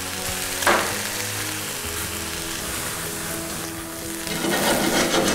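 A cast-iron skillet of shallots, pickled cucumber and porcini sizzling as it is deglazed with Starka vodka, with a sudden burst of hissing about a second in. The sizzling swells louder near the end as the alcohol catches and the pan flames up in a flambé.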